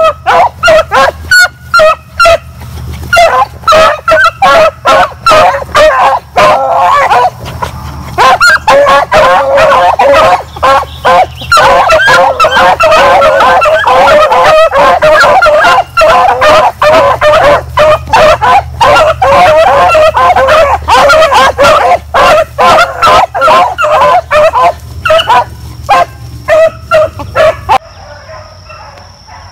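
A pack of rabbit hounds baying and yelping loudly in full cry, their voices overlapping almost without a break as they run a rabbit's scent. The cry stops abruptly near the end.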